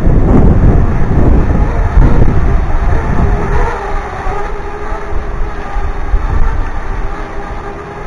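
Heavy wind buffeting the microphone with a low rumble, easing about three and a half seconds in, when the steady hum of a quadcopter drone's propellers overhead comes through faintly.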